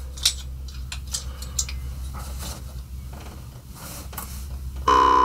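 Scattered small clicks and rustles as a metal jaw harp is handled and set to the lips. Near the end the Sesulka Rena brumle, a handmade Czech jaw harp in the key of C, starts sounding suddenly: a buzzing drone with one strong high overtone.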